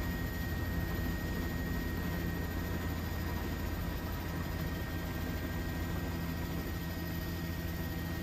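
Steady, distant aircraft engine rumble with a faint high steady whine, holding an even level without a clear swell or fade.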